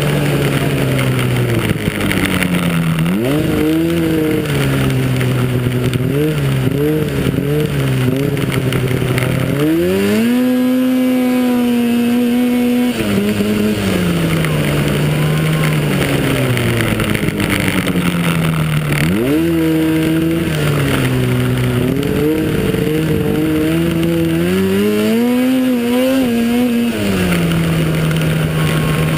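Racing snowmobile engine heard from on board, rising and falling in pitch as the rider accelerates and backs off through the trail, with a few seconds held high and steady at full throttle about a third of the way in. Rushing wind and track noise run underneath.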